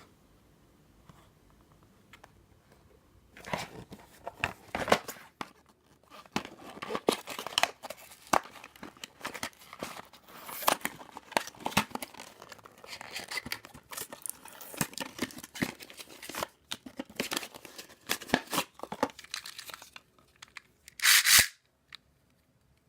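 Cardboard box and plastic packaging being torn open and handled, in irregular rips, crackles and crinkles after a few quiet seconds. A louder half-second sound comes near the end.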